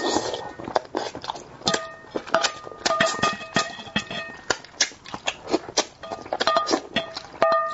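Close-miked eating of braised fish: a quick run of wet mouth clicks and lip smacks. Short plucked notes at the same pitch recur throughout.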